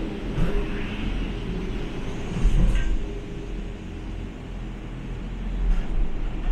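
Gondola cabin of a cable car rumbling and humming as it runs out of the station onto the haul rope, with a louder bump and a sharp clunk about two and a half seconds in.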